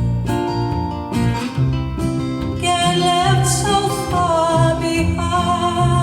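Live country song: a singer holding wavering sung notes over strummed acoustic guitar and a moving bass line.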